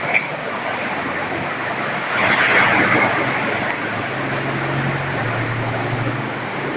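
Steady rain, an even hiss that swells a little about two seconds in.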